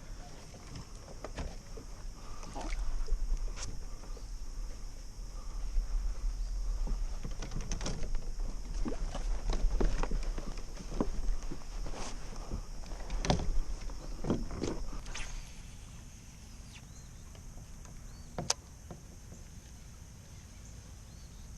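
Irregular knocks, scrapes and sloshing as a kayak is worked out of mud, with a low rumble underneath. It goes quieter after about 15 seconds, with one sharp knock near the end.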